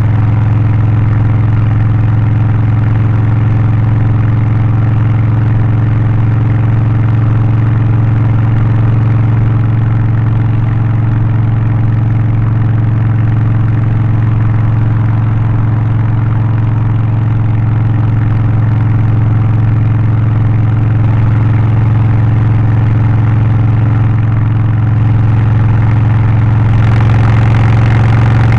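Harley-Davidson Low Rider ST's Milwaukee-Eight 117 V-twin, Stage 1 tuned with an aftermarket exhaust and air filter, running steadily at an even engine speed. Near the end the sound turns brighter and slightly louder.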